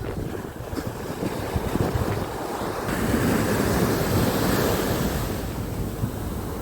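Sea waves breaking and washing up a sandy beach, one wash swelling about three seconds in and easing near the end, with wind buffeting the microphone.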